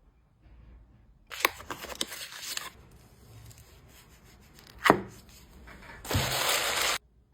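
Packing noises: plastic packaging rustling and crinkling for about a second and a half, then a single sharp click, and near the end a loud steady hiss of about a second that cuts off suddenly.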